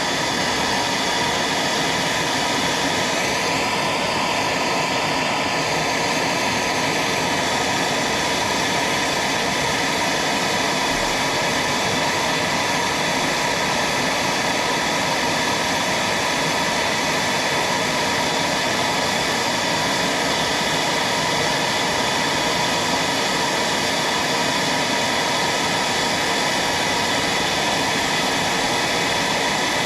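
Handheld gas torch burning steadily, its flame heating a broken starter mounting bolt to loosen it.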